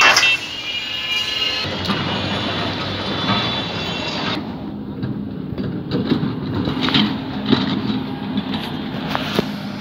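Street traffic noise: vehicle engines running amid mixed clatter, with the sound changing abruptly about four seconds in and a steady low engine hum after that.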